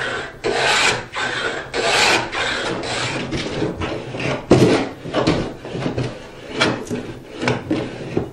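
Moving fillister plane with a skewed iron cutting a rabbet along a board's edge: a series of rasping strokes, about one a second, with a knock about halfway and shorter, quicker strokes after it.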